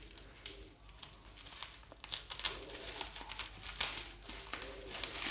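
Plastic packaging wrap and tape crinkling and crackling as it is slit open with a small cutter, sparse at first and busier from about two seconds in.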